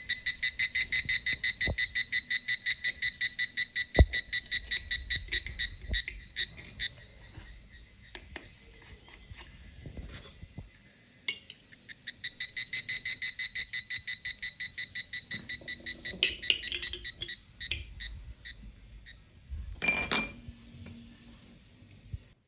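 A high-pitched electronic beeper or buzzer sounding in rapid pulses, about eight a second, in two runs: one of about seven seconds at the start, one of about four seconds from about twelve seconds in. Scattered knocks follow, with a louder clatter near the end.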